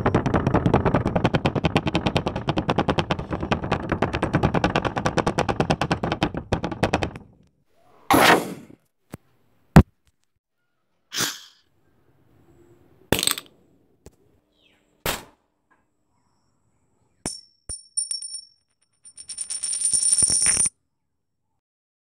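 Sound effects: a fast, loud rattle of sharp cracks for about seven seconds, then a string of separate short effects: a brief swish, a very sharp crack, several short bursts, and near the end a high two-note beeping under a noisy burst that cuts off abruptly.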